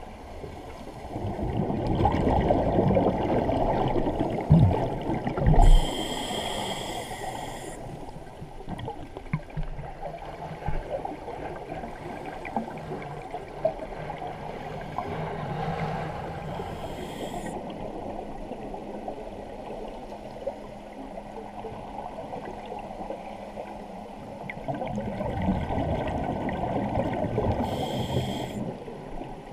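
Scuba diver breathing underwater through a regulator: each exhalation sends out a few seconds of rumbling, gurgling bubbles, followed by a short hiss of inhalation. Three such breaths come about ten seconds apart.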